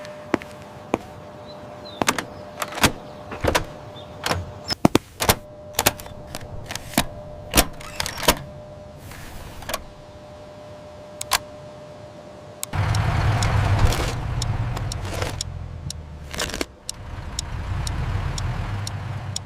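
Scattered sharp clicks and knocks. About two-thirds of the way through, a motor vehicle engine starts running and carries on loudly, dipping briefly once before it resumes.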